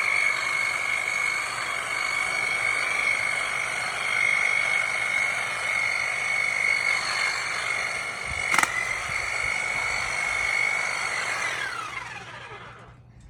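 Electric power trimmer running steadily, buzzing as it cuts through sweet potato vines, with a sharp click partway through. Near the end it is released and the motor winds down in falling pitch.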